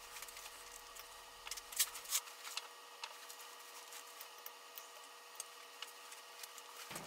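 Light clicks and taps from working the tailstock of a 1943 Hendey lathe by hand, its clamp lever swung and its handwheel taken hold of, over a steady hum. The clicks are thickest about two seconds in.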